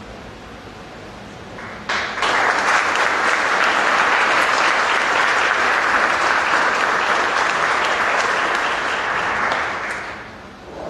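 Audience applauding, starting suddenly about two seconds in, holding steady, then dying away near the end.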